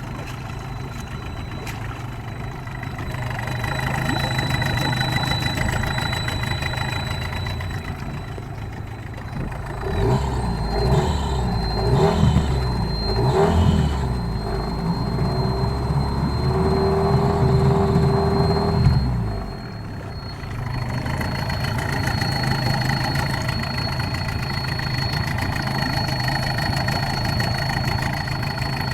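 Parsun outboard motor idling, revved up several times in the middle and then dropping back to idle, with a thin, steady high-pitched whistle over the engine throughout. The whistle is the fault under investigation, one that comes on as the motor warms up; its cause is not known.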